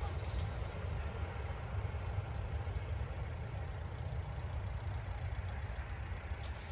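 Train running past: a steady low rumble with a hiss above it.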